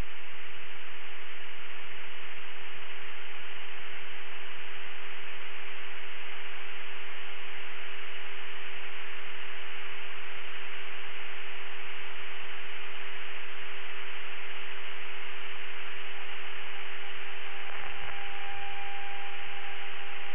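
Steady radio static hiss on the cockpit radio audio, with one constant low hum tone running under it; a faint higher tone joins near the end.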